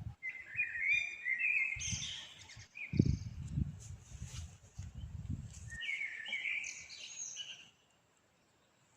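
Songbirds chirping and singing in two short bursts, over low rumbling thumps, the loudest about three seconds in; everything cuts off suddenly near the end.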